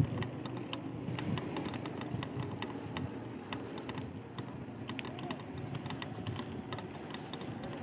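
A mountain bike being ridden, with a stream of irregular clicks and creaks over a steady road hiss. The rider puts the creaking down to faulty gear shifting and to water and dust in the rear suspension.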